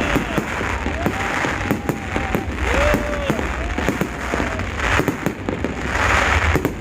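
Fireworks display bursting in quick succession: many sharp bangs over a dense crackle.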